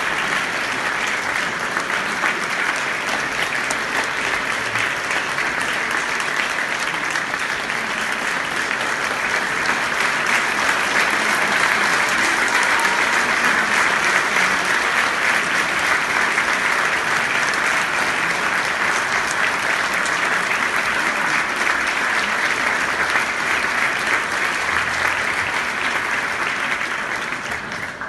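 Audience applauding: dense, steady clapping that swells a little in the middle and dies away at the end.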